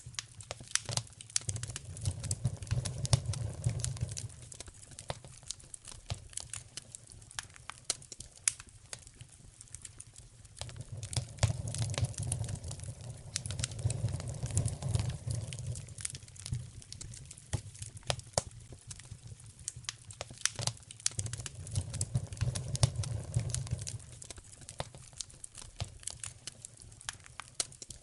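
Wood fire in a fireplace crackling, with frequent sharp pops and snaps. Three times a low rumbling swell rises and fades under the crackle.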